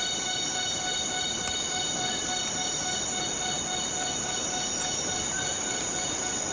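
Steady rain falling on rainforest, with jungle insects droning on one unbroken pitch over the hiss of the rain.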